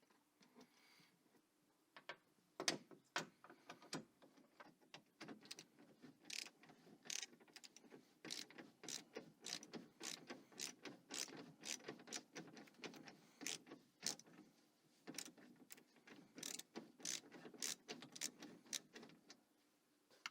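Irregular metallic clicking and rattling, a few clicks a second, starting about two seconds in and stopping shortly before the end: hand tools and parts being worked on a Hummer H2 rear door's window regulator.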